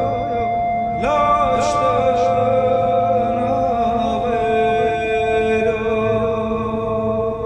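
Music: a slow melody with wavering pitch, sung by a male voice, over a steady held drone.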